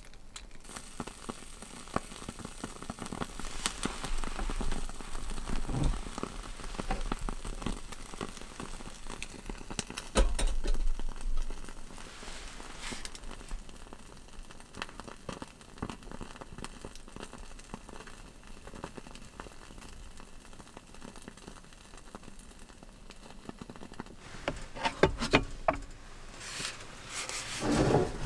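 Small charcoal fire in a mini tabletop stove crackling and popping steadily as it catches. A few sharper knocks come near the end.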